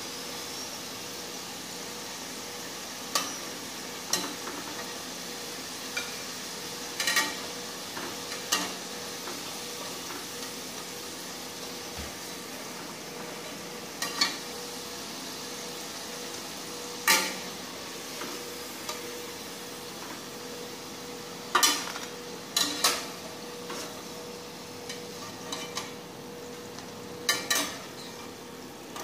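Steady sizzle of potato fries frying in hot oil in a wok, with sharp clinks of a slotted metal spatula every few seconds as the fries are scooped out.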